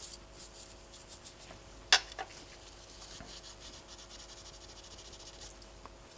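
Small part of a fitness band being scrubbed clean: quick, light rubbing strokes that turn fast and even before stopping near the end. A single sharp click comes about two seconds in.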